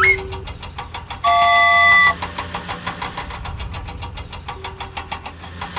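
Cartoon vehicle engine sound effect running with a rapid, even chugging pulse. A loud steady horn honk sounds about a second in and lasts just under a second.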